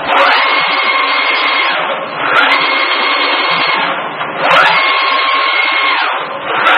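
Flatbed laser cutting machine's gantry motors whining as the laser head makes a run of moves about two seconds each: each move starts with a rising whine, holds a steady pitch, then drops away. A steady rushing noise runs underneath.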